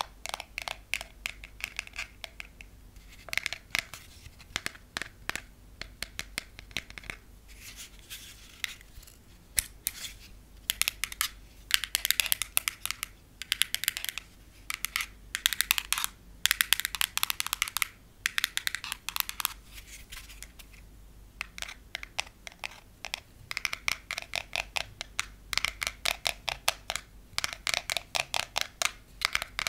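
Long fingernails tapping fast on hard plastic: first natural nails on a translucent rod, then painted fake nails on a small clear plastic case, then natural nails on the rod again. The taps come as quick runs of sharp clicks, broken by short pauses.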